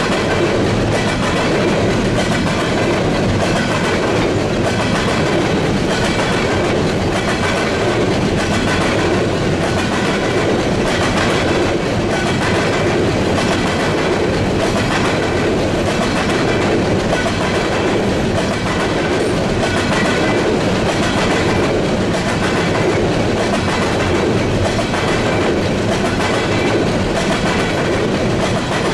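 Freight train cars rolling steadily past, their steel wheels making a continuous clickety-clack on the rails.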